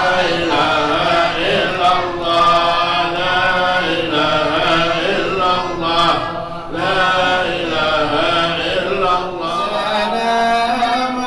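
Islamic dhikr chanted by a man into a microphone, in long held, gently wavering melodic lines with short breaths between phrases.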